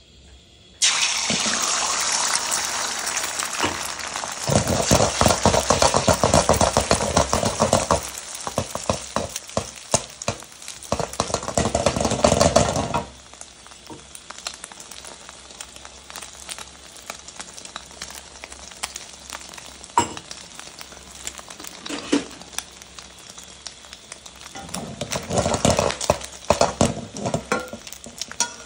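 Beaten egg poured into hot oil in a wok hits with a sudden loud sizzle about a second in. Loud sizzling and crackling go on as the egg puffs up, then drop to a quieter steady frying about halfway through, and swell again near the end.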